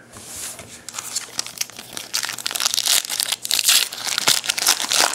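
Crinkly wrapper of a baseball card pack being torn open and crumpled, a dense crackling that grows louder from about two seconds in.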